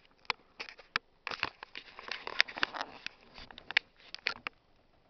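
Handling noise from a handheld phone: irregular rustling with many short, sharp clicks as it is moved about and fingers rub against it.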